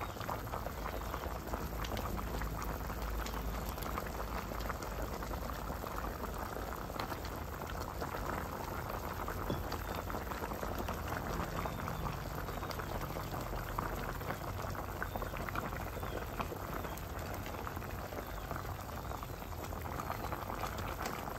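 Pork and fish pieces in an aluminium pot bubbling steadily on the stove, a continuous fine crackle of a simmering braise.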